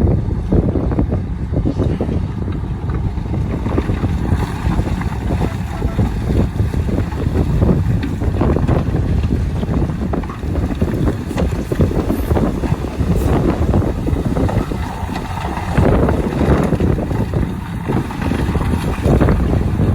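Heavy diesel earthmoving machinery running at a worksite, a steady low rumble with wind buffeting the microphone.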